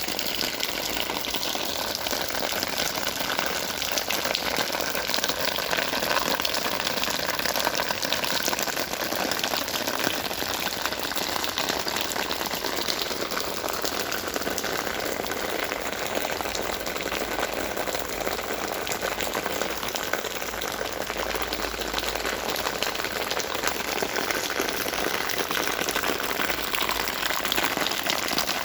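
Steady rush of water with a fine patter of drops, typical of rainwater running and dripping down from a railway viaduct.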